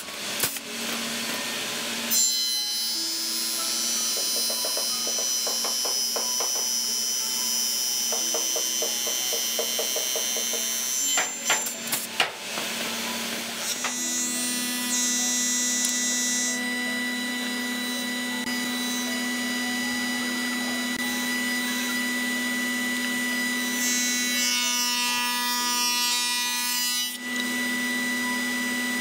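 Woodworking machines running with a steady motor hum: a spindle moulder's spinning cutter, then a table saw cutting wooden boards fed along its fence. The sound shifts abruptly a few times.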